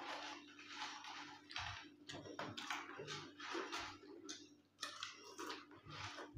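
Lay's potato chips crunching as they are chewed, a quick, irregular run of crisp crunches.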